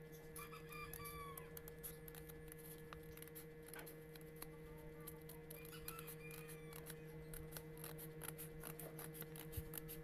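Scissors cutting along the edge of a paper mailer, then the paper being handled: many faint, irregular snips and paper crinkles over a steady low hum.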